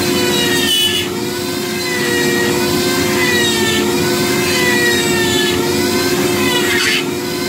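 Dremel rotary tool on a flex shaft running at speed while a small carving bit cuts grooves into wood: a steady high whine whose pitch wavers up and down as the bit bites and is eased off.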